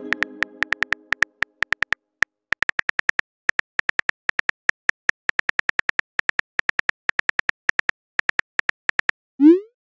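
Phone-keyboard typing clicks from a texting-story app: a long, irregular run of short clicks with a brief pause about two seconds in, over the fading ring of a chime. Near the end comes a short rising swoop, the message-sent sound.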